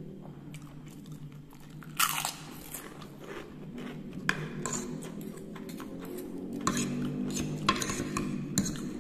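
Close-up chewing and crunching of seroja, a crisp Sundanese snack, eaten with fried noodles. A sharp crunch comes about two seconds in, with several more in the second half between softer chewing.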